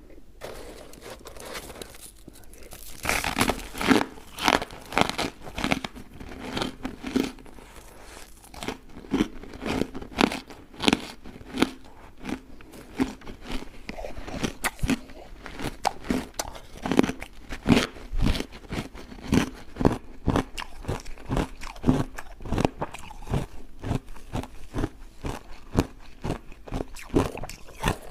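Close-miked crunching of refrozen block ice being bitten and chewed, a rapid run of sharp crunches after a quieter first few seconds.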